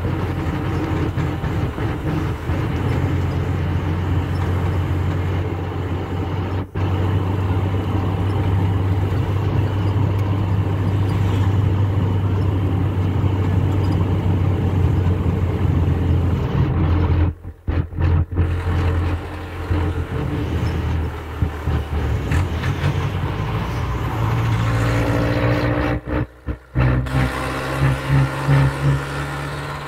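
Engine and road noise heard from inside a moving vehicle: a steady low engine hum that cuts out briefly three times. Near the end a higher engine note comes in.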